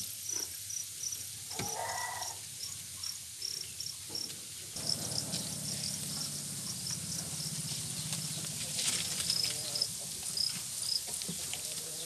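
Farmed crickets chirping in a crowded rearing pen: short high chirps, about three a second at first, then more scattered. A low steady hum comes in about five seconds in.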